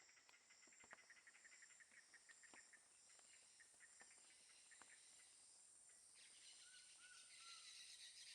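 Faint insect chorus: a steady high drone under a cricket's rapid run of pulsed chirps, which stops after about three seconds. About six seconds in, a hissing wash of insects swells up, with a few short soft notes just after.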